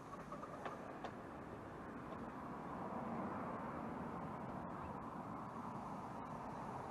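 Miniature railway locomotive moving slowly as it closes up to the carriage: a steady low running sound that grows a little louder partway through, with two light clicks about a second in.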